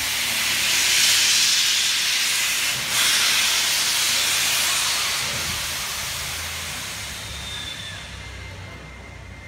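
Steam locomotive letting off steam in a loud, even hiss that starts suddenly, breaks off for a moment about three seconds in, then resumes and slowly dies away over the last few seconds.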